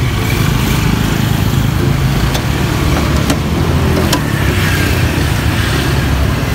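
A small engine running steadily with a low hum. A few sharp clicks come around the middle, while a drink cup is pressed and sealed in a lever-operated cup sealer.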